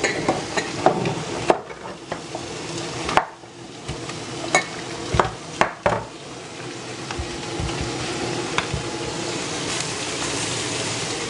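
Meatballs frying in butter in a pan, sizzling steadily. A utensil knocks and scrapes against the pan several times during the first half.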